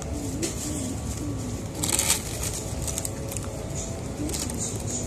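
Crinkling and rustling of a paper food wrapper being handled, loudest in a burst about two seconds in, over the steady hum of a busy fast-food restaurant dining room.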